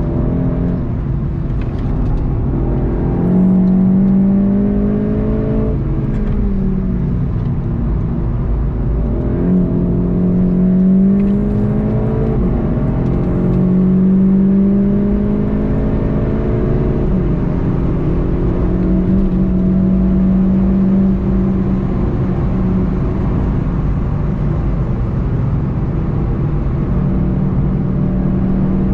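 Volkswagen Golf GTI TCR's turbocharged 2.0-litre four-cylinder under hard acceleration, heard from inside the car: the engine note climbs in pitch over a few seconds and drops sharply at each of several upshifts, then holds steady for a while. Steady tyre and wind noise runs underneath.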